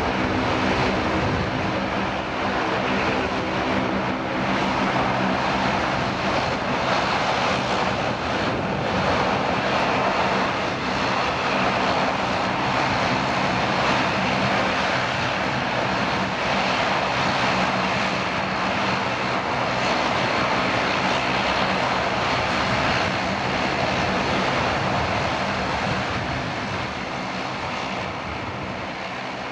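Boeing 777-300ER's twin GE90-115B engines at takeoff thrust: a steady jet roar through the takeoff roll and climb-out, with a low steady hum under it in the first few seconds. It fades near the end as the aircraft climbs away.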